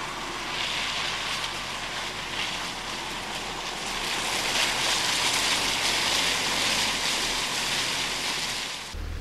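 Mini Cooper S Countryman ALL4 driving slowly across wet grass and mud: a steady rushing hiss of tyres on wet ground with little engine sound. It swells as the car passes close, then drops just before the end.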